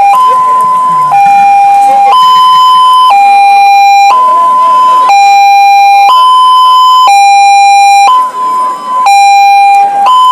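Loud two-tone hi-lo siren, switching between a higher and a lower steady tone about once a second.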